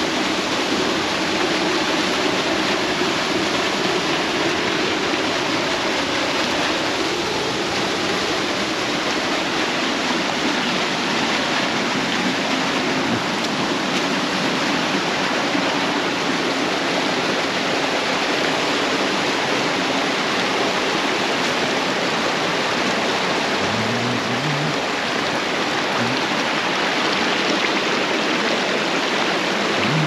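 Small mountain stream rushing over rocks and little cascades: a steady, unbroken rush of water.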